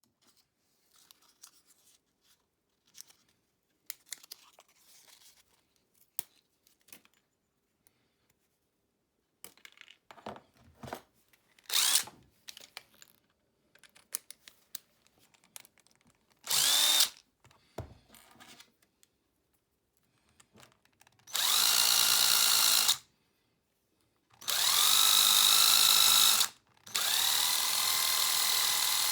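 Small handheld power tool, used to machine-polish homemade metal fishing spoons, running in three short bursts of about two seconds each near the end. Its whine rises as it spins up each time. Before that come scattered light clicks of handling and one brief start-up.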